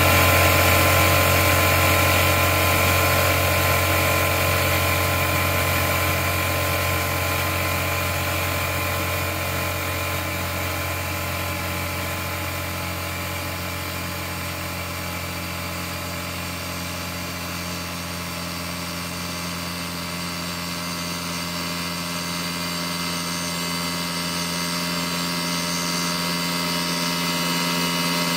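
Electric air compressor running steadily as it pumps up its tank, its motor working hard against the rising tank pressure.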